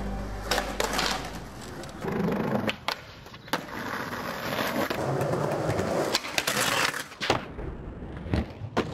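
Skateboard wheels rolling on concrete, with several sharp clacks of the board popping and landing on the pavement. Background music fades out in the first second.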